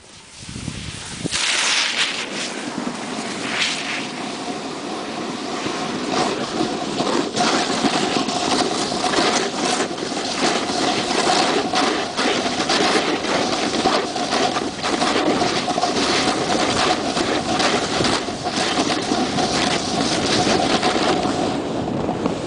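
Wind rushing over the microphone and a snowboard scraping and chattering over hard, wind-crusted snow on a downhill run, with a faint steady tone through most of it.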